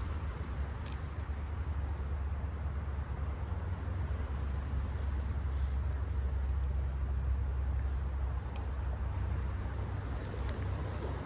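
Crickets singing in a thin, steady, high-pitched trill over a steady low rumble, with a few faint clicks.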